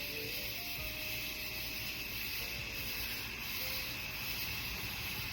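Steady outdoor background noise of distant road traffic: a low rumble under a constant hiss.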